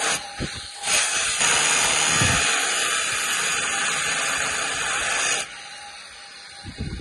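Metal-cutting torch hissing steadily as it cuts steel. The hiss starts about a second in and cuts off suddenly near the end.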